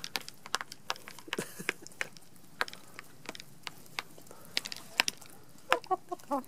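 Hens pecking fast at a plate of warm grits: their beaks land on the plate in quick, irregular sharp taps. A hen gives a few short clucks near the end.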